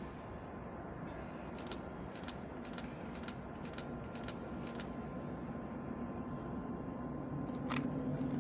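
Freight train rolling slowly on rails, its wheels clicking over rail joints about twice a second. From the middle on, a diesel engine hum from the ChME3 shunting locomotive grows steadily louder as it comes closer.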